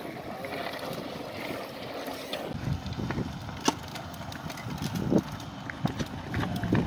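Cross-country mountain bikes rolling past on loose, stony dry dirt, tyres crunching with scattered sharp clicks. Wind rumbles on the microphone from about two and a half seconds in.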